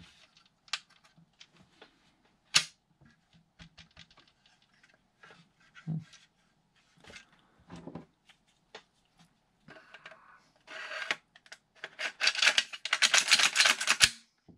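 Hard plastic clicking, knocking and scraping as a 3D-printed PLA folding-stock frame is handled and an airsoft pistol is fitted into it. A sharp click comes about two and a half seconds in. A long run of scraping and rattling fills the last few seconds as the pistol is pushed into place, ending in a click.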